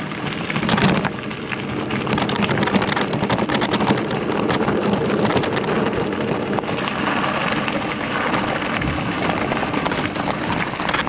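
Wind buffeting the microphone and road noise while riding a bicycle: a steady, crackling rumble throughout.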